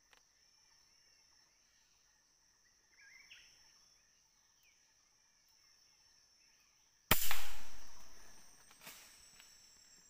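A single loud gunshot about seven seconds in, its report dying away over a second or so, with a fainter crack about two seconds later. Before it, faint bird chirps over a steady high insect drone.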